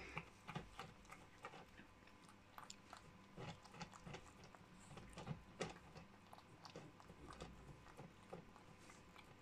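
Cat licking and chewing wet food from a small cup: faint, irregular wet clicks and smacks, a few a second.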